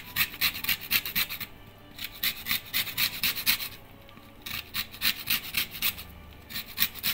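Lemon being zested on a grater: quick rasping strokes, about four a second, in four short runs with brief pauses between them.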